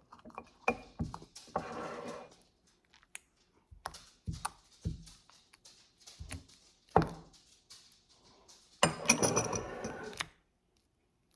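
Scattered knocks and clinks of utensils and containers being handled while making slime, with a denser scraping, rattling stretch about nine seconds in.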